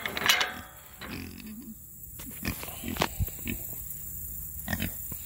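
Pigs grunting in short, scattered grunts, with a brief metal clatter from the gate latch at the start.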